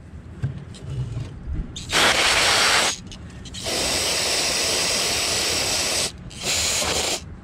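Aerosol carburetor cleaner hissing from its straw in three bursts: one of about a second, a longer one of about two and a half seconds, then a short one near the end. It is being sprayed into a carburetor with the float bowl removed, to clean it.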